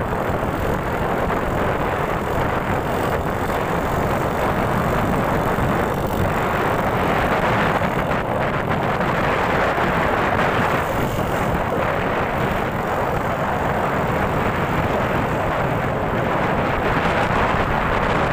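A motorcycle riding along at speed, heard from the rider's seat: a steady rush of wind and engine and road noise.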